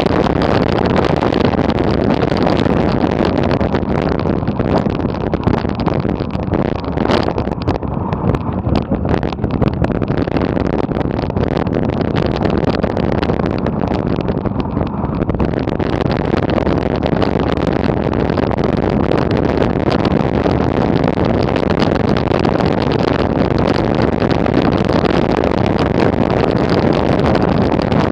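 Wind rushing over an action camera's microphone, with bicycle tyres rattling over gravel, on a fast coasting descent down a dirt track. The rush eases for several seconds in the middle as the bike slows, then comes back.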